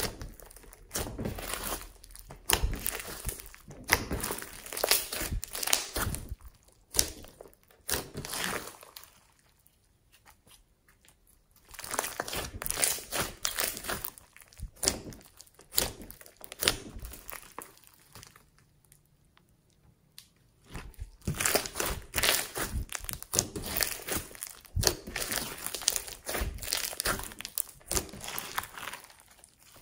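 Glossy slime mixed with foam beads being squeezed and kneaded by hand, giving dense crackling clicks and pops. It comes in three stretches with short pauses between them.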